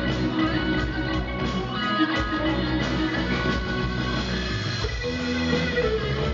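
Rock band playing live, with electric guitars carrying an instrumental passage of the song.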